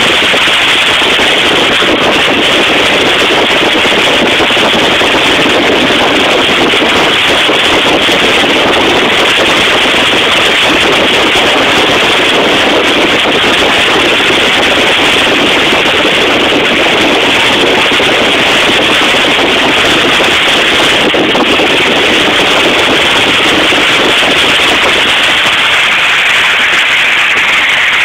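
Industrial vacuum suction cleaning out a power plant silo: a loud, steady rushing noise that does not change.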